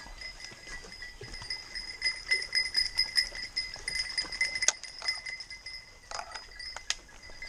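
Bells on hunting dogs ringing and jangling as the dogs move around a downed wild boar, busiest in the middle, with a few sharp clinks near the end.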